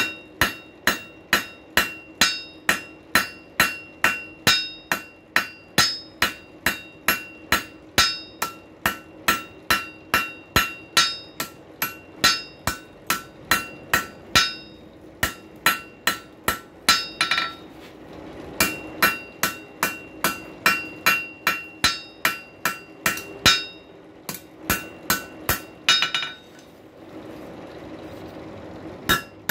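Blacksmith's hand hammer striking a hot rail spike on an anvil, about two to three blows a second with a bright ring from the steel and anvil on each strike, pausing briefly a few times. The blows are drawing out and squaring the shaft.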